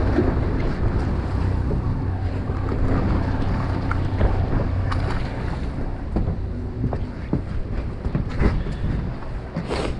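Steady low rumble and hum of a fishing boat's engine, with wind buffeting the microphone and waves washing against the hull. Scattered small clicks and knocks of tackle and handling run through it, with one sharp knock near the end.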